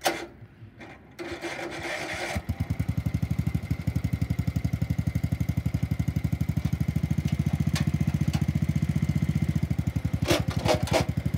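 John Deere garden tractor engine turning over briefly on the starter and catching about two seconds in, then running with a fast, even pulsing beat. A few sharp clacks sound near the end.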